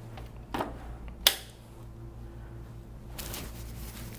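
A soft knock, then a single sharp click a little over a second in. Near the end there is a rustle of movement.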